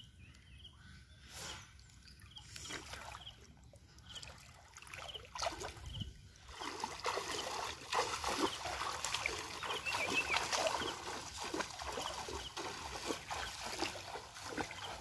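Legs wading through knee-deep floodwater, with a steady run of splashing and sloshing that starts about six seconds in and grows louder; before that only quiet, scattered water sounds.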